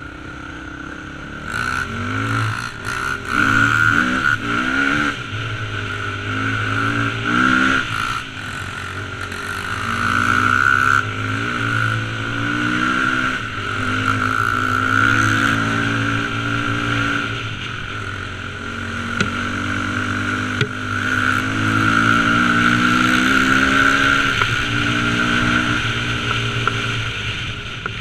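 Dirt bike engine, heard from the rider's helmet, revving hard: short blips of throttle early on, then repeated pulls that climb in pitch and drop back at each gear change, with a steady rush of wind noise over it.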